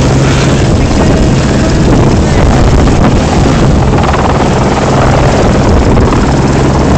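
Helicopter running loud and steady close by, rotor and engine noise mixed with wind buffeting on the microphone.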